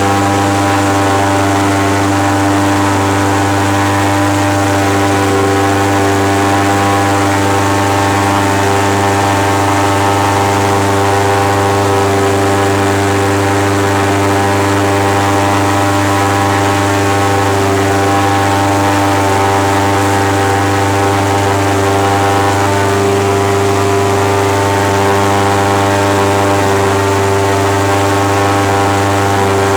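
Airboat's engine and air propeller running at a steady speed: a loud, even drone that holds one pitch throughout.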